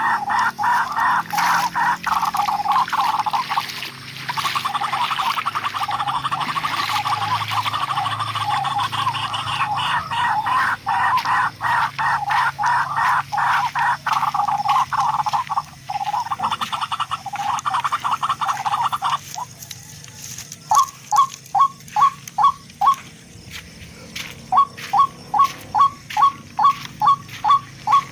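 Animal calls, plausibly a barred rail (tikling): a long, rapid run of harsh pulsed notes, then, about two-thirds of the way in, a series of short, sharp dropping notes about three a second.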